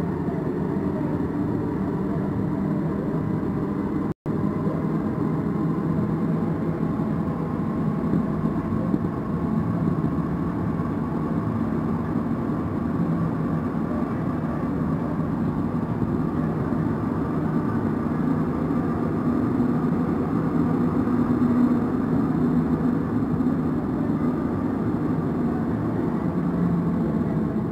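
Alstom NS-16 metro train running, heard from on board: a steady rumble and whir with faint running tones. The sound drops out for an instant about four seconds in.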